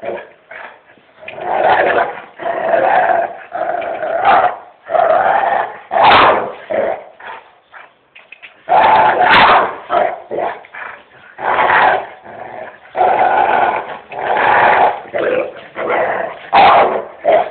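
A dog growling and barking in repeated loud bouts about a second long, with short pauses between them.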